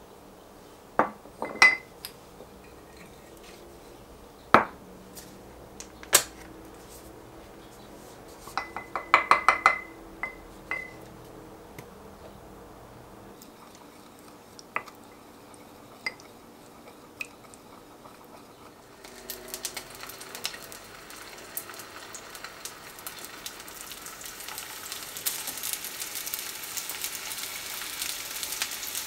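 Wooden spoon knocking and clinking against a glazed ceramic bowl while a sauce of soy, oyster and hoisin sauce with honey is stirred, with a quick run of clinks about a third of the way in. About two-thirds of the way through, skewered fish cakes start sizzling in a hot frying pan, growing louder toward the end.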